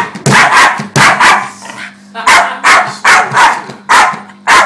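Small dog barking rapidly and excitedly at a bass drum: about a dozen sharp barks in quick runs, with a short lull about two seconds in.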